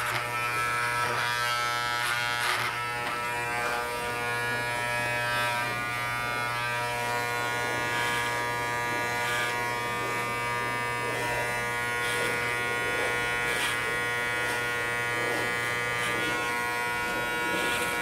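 Electric hair clippers running with a steady buzz while trimming a mannequin's beard freehand.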